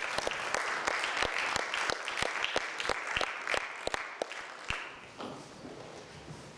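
Audience applauding, the clapping dying away about five seconds in, then only faint rustling.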